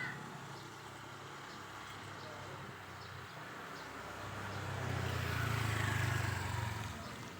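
A motor vehicle passing: a low engine hum grows louder from about four seconds in, peaks, and fades near the end.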